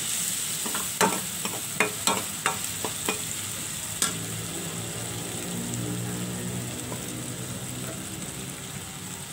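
Onions, chillies and tomato stir-frying in oil in a wok: a steady sizzle, with the metal spatula knocking and scraping against the pan several times in the first four seconds, then the sizzle alone.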